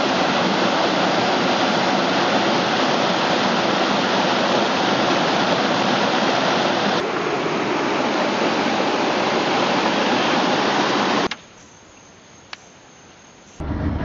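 Spring water rushing over rocks in a loud, steady rush that cuts off suddenly after about eleven seconds, leaving a quieter stretch with a single click.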